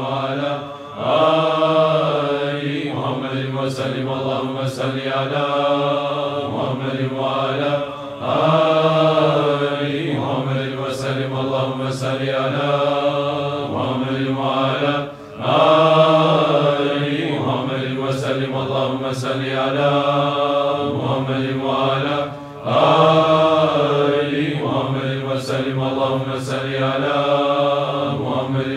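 Men chanting a Naqshbandi zikr in unison, one phrase repeated over and over in a cycle of about seven seconds, with a short break for breath between repeats.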